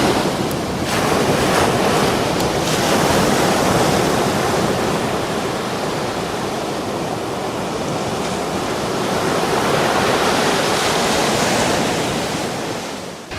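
Sea surf: waves breaking and washing in, a loud, steady rush that swells and eases over several seconds.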